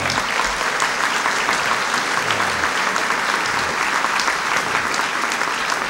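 Large audience applauding, many hands clapping steadily.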